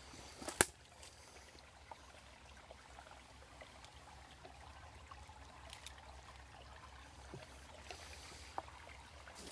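Faint trickling of a small forest creek, with one sharp click about half a second in and a few faint ticks after it.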